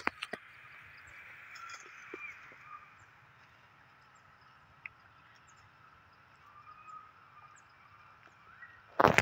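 Outdoor woodland ambience: a steady high insect drone with scattered faint chirps. A burst of loud crackles comes near the end.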